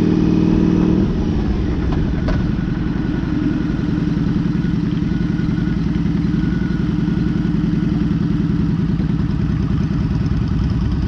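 Motorcycle engine heard from a camera mounted on the bike: a steady cruising note drops in pitch about a second in as the bike slows. There is one sharp click just after two seconds, then a low, pulsing throb at low speed as it rolls toward a stop.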